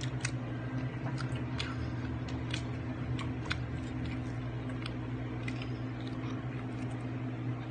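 Eating sounds of balot (duck egg) close to the microphone: scattered small clicks and smacks at an uneven pace, over a steady low hum.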